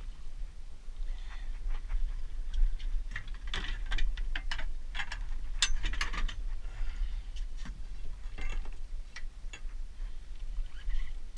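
Fishing reel being cranked to bring a hooked kingfish up to the boat, its gears and clicks ticking in irregular runs.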